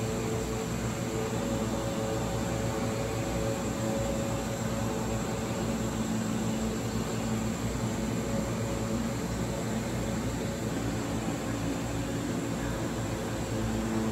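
Steady machine hum and hiss of aquarium equipment, with a few constant low tones and no change in level.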